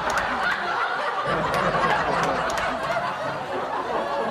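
A group of people laughing, continuous and overlapping, without a break.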